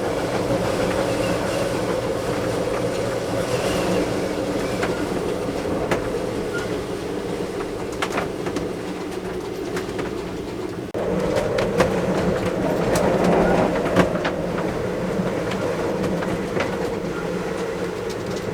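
Storm-force wind blowing over an anchored sailboat: a steady, loud roar with a droning pitch from the rigging, and scattered knocks and clatters from the boat. It jumps louder abruptly about two-thirds of the way through.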